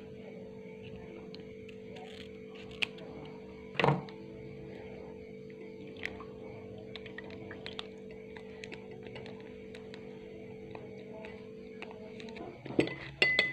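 Quiet handling of a Komix cough-syrup sachet being opened and squeezed into a glass: scattered small clicks and crinkles, with one louder rustle about four seconds in. Underneath is soft background music holding steady notes, which stops shortly before the end.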